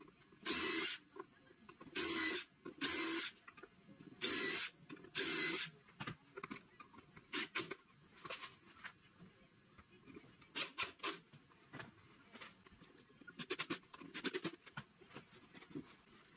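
Cordless drill run in five short bursts of about half a second each over the first six seconds. After that come scattered light clicks and taps, small metal parts being handled.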